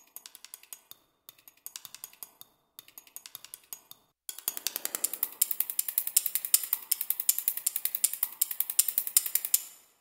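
A programmed pattern of short, dry, high clicks and ticks: home-recorded percussion samples, such as drumstick clicks and chopstick hits, played from a software sampler. Sparse hits for the first few seconds, then a busy run of rapid ticks from about four seconds in that stops just before the end.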